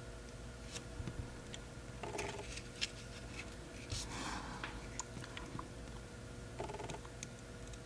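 Quiet soldering work on a drone flight controller: scattered small clicks of the iron and wire being handled, and a brief hiss about four seconds in, over a steady low hum. Two short faint buzzy tones come about two seconds in and near the end.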